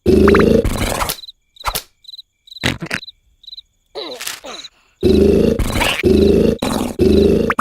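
Cartoon character's exaggerated rasping snore in loud repeated bursts, at the start and again from about five seconds in. In the quiet stretch between, cricket chirps and a few sharp knocks sound.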